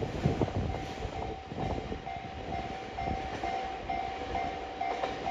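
Freight train's tank wagons rolling over rail joints, their wheels giving irregular clacks and knocks over a steady rumble; the knocks are heaviest in the first second. A level-crossing warning bell rings about twice a second alongside.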